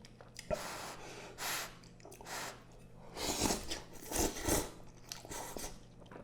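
A person eating glass noodles from a spicy octopus, tripe and shrimp stew: wet chewing and mouth sounds in short noisy bursts, roughly one a second, loudest around the middle.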